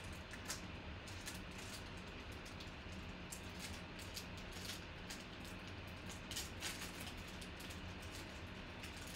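Low, steady room hum with scattered faint clicks and ticks.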